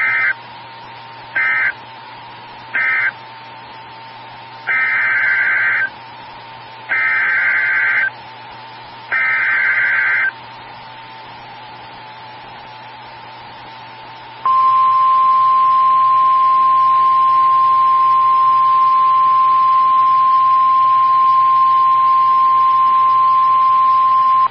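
NOAA Weather Radio Emergency Alert System signalling: three short end-of-message data bursts, then three longer SAME header bursts for a new alert, a few seconds apart. After a pause comes the steady 1050 Hz weather radio alert tone for about ten seconds, which marks the start of the next severe thunderstorm warning.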